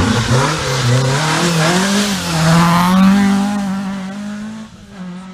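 Rally car engine revving hard as the car pulls out of a corner and accelerates away. The pitch climbs and drops at the gear changes, then the engine fades off into the distance near the end.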